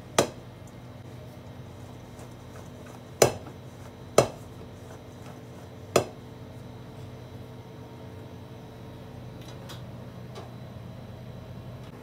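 Stainless steel mixing bowl knocking on the cutting board four times as eggplant pieces are tossed in it by hand to coat them with potato starch, over a steady low hum.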